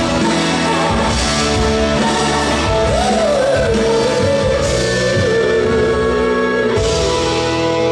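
Live pop ballad performance: a female singer over a full band with drums. About three seconds in she holds one long wavering note, which ends shortly before the band carries on alone.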